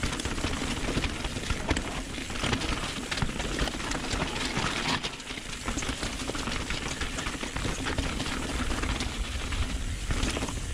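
Downhill mountain bike riding over a rocky trail: tyres crunching over loose stones, with a constant clatter of small knocks and rattles from the bike, over a low rumble of wind on the microphone.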